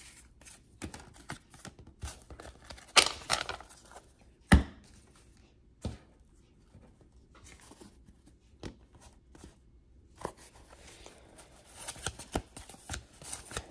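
1991-92 Fleer basketball cards being handled and sorted by hand: cards sliding and flicking against each other. There is a brief rustle about three seconds in and a sharp tap about a second and a half later.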